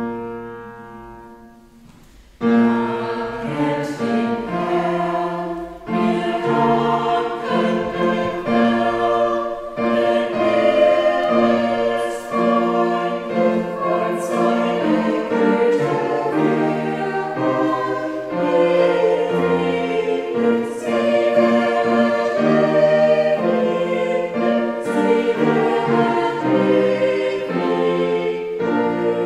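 A single keyboard note rings and fades over the first two seconds, then a small church choir of men and women begins singing in harmony and carries on with a slow-moving, sustained hymn-like piece.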